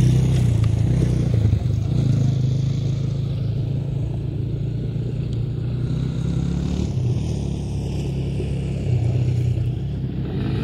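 A vehicle engine running steadily at around idle, its note wavering a little up and down.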